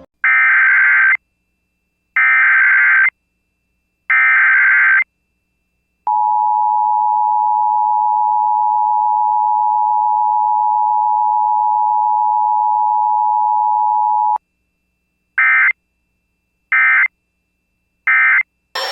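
Emergency Alert System activation: three roughly one-second bursts of the SAME digital header, then the steady two-tone EAS attention signal for about eight seconds, then three short end-of-message bursts.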